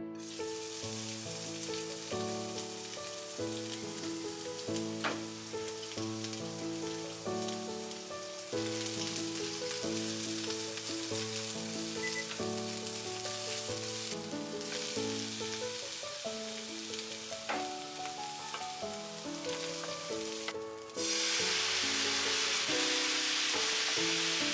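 Julienned carrot and sliced lotus root sizzling as they are stir-fried with chopsticks in a nonstick frying pan. The sizzle is steady, grows somewhat louder a third of the way in, and much louder near the end, with a couple of sharp ticks along the way.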